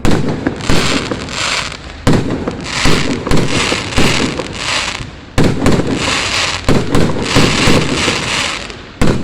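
Aerial fireworks bursting in quick succession, about one loud boom every second, each followed by a crackling shower.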